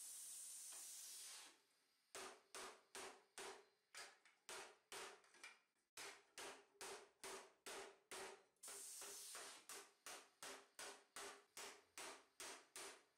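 Hammer blows on a mild steel armor plate over a metal stake, about three strikes a second, each with a short metallic ring. A steady hiss is heard at the start and again for about a second past the middle, between runs of blows.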